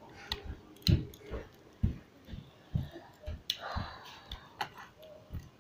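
Hard plastic clicks and knocks, at irregular intervals, from a Transformers Titans Return Alpha Trion figure being twisted through its transformation by hand. A short rustle about three and a half seconds in.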